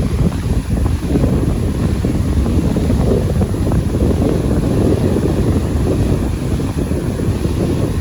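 Wind buffeting the phone's microphone: a loud, low, gusty rush with no distinct tones.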